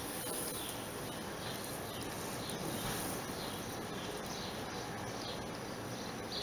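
A small bird chirping outside, short high chirps repeated about once or twice a second over a steady background of outdoor noise.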